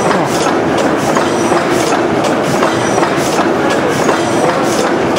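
A 600 horsepower Snow gas engine running, its flywheels turning, with a steady, rhythmic mechanical clatter from its moving parts.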